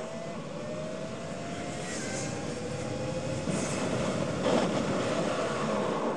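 Road and engine noise of a car on the move: a steady rushing noise with a faint whine that rises slowly in pitch over the first few seconds, growing louder from about three and a half seconds in.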